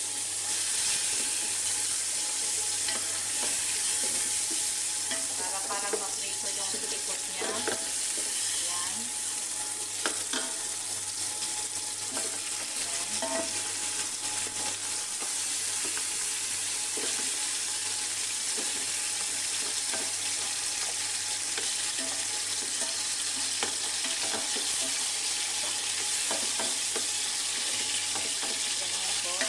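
Raw chicken pieces sizzling in hot oil with sautéed onion, garlic and ginger in a metal pot, a steady frying hiss. Scattered knocks and scrapes come from a wooden spoon and a metal ladle against the pot as the pieces are turned.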